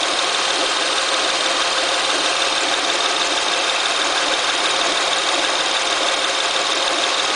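Acura TL engine idling steadily, with a strange noise from the engine bay: a steady high-pitched tone over the running engine.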